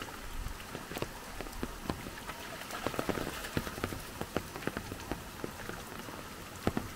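Rain falling on shallow muddy runoff water: many separate drop impacts, irregularly spaced, over a steady hiss.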